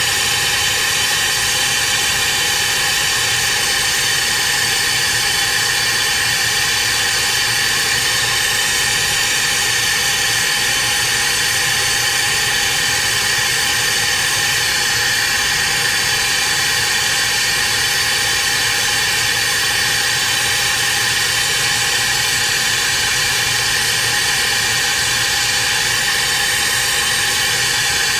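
Air-acetylene brazing torch flame hissing steadily while a leaking refrigerant pipe is brazed, with a faint steady whine underneath.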